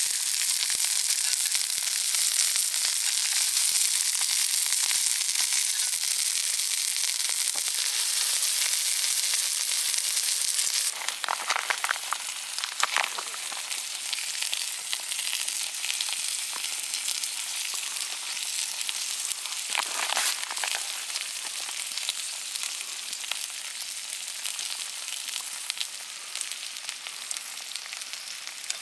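Sirloin steak sizzling in a hot pan as a steady, hissing fry. About eleven seconds in the sizzle drops in level, with a few short clatters then and again around twenty seconds.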